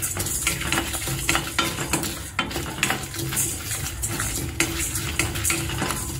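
Wooden spatula scraping and stirring around a stainless-steel kadai, toor dal, coriander seeds, peppercorns and dried red chillies rattling and rasping against the metal as they dry-roast. The strokes come in quick, uneven succession.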